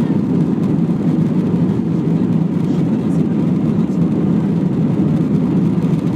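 Steady engine and airflow noise of an Airbus A321-200 jet airliner, heard from inside the passenger cabin as an even low rumble.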